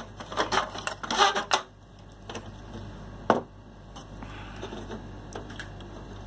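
Clicks and rattles of a voltage stabilizer's relay being handled, with one sharp click a little over three seconds in, then quieter handling.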